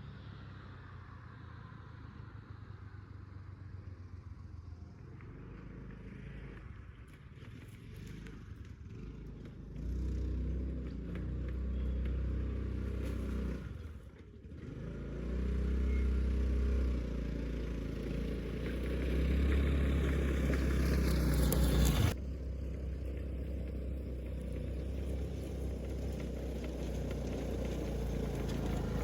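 A motor vehicle's engine running on the road, its pitch rising and falling as it changes speed, with a brief drop about halfway through and a sudden change a little later.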